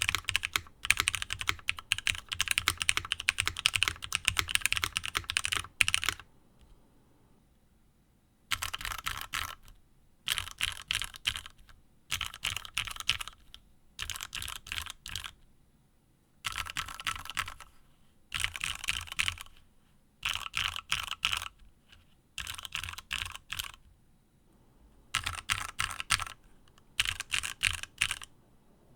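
Mechanical keyboard with Cherry MX Black Hyperglide linear switches on a nylon plate being typed on: steady fast typing for about six seconds, a pause, then a series of short runs of keystrokes about a second long with brief gaps, the repeated ASDFASDF pattern.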